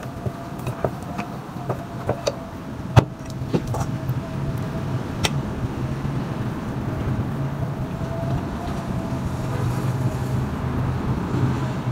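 Wooden rolling pin knocking on a countertop as bread dough is rolled out: a string of sharp knocks over the first five seconds, the loudest about three seconds in, over a steady low hum.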